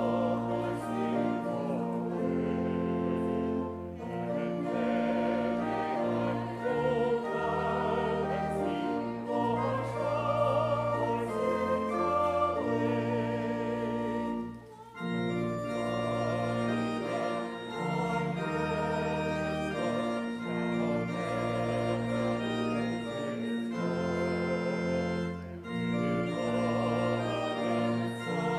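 Hymn sung by voices over organ accompaniment, in slow held chords. The music breaks off for a moment about halfway, between phrases.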